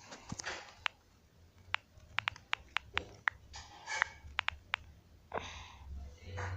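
Irregular sharp clicks of typing, about a dozen spread over a few seconds, with soft breathing in between.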